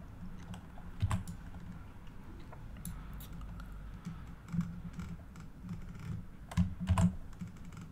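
Computer keyboard keys pressed now and then, a few scattered taps with the strongest pair near the end, over a steady low hum.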